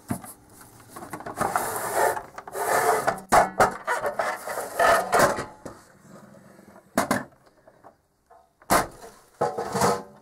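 Screws being undone with a screwdriver and the metal case of a Keithley 199 multimeter scraping and sliding off its chassis, with several sharp knocks; the loudest knock comes near the end.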